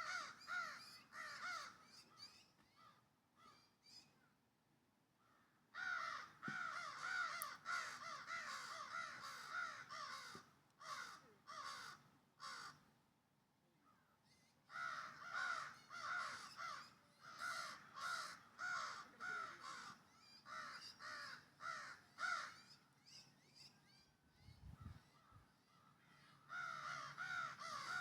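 A young bird calling in bouts of rapid, short falling notes, several a second, stopping for a few seconds and starting again.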